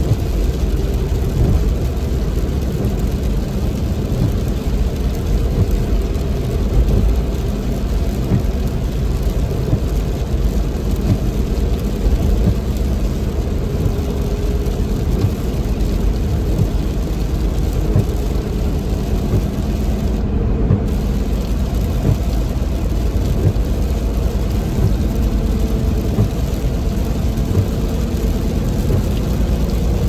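Inside a car driving on a wet highway in heavy rain: a steady low drone of engine and tyres on the wet road, with rain hitting the windscreen.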